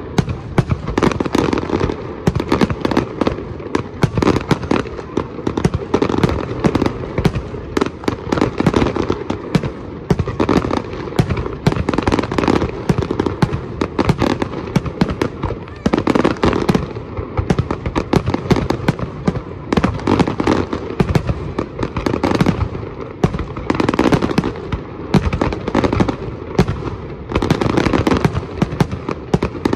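Fireworks display firing a dense barrage: aerial shells bang in rapid, overlapping succession with crackling, with no pause between reports.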